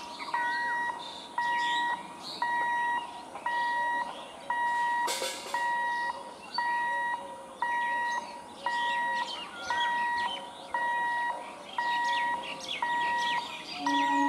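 Electronic warning beeper sounding one steady beep over and over, about one and a half beeps a second. A brief noise burst comes about five seconds in, and a second, lower beeping tone joins near the end.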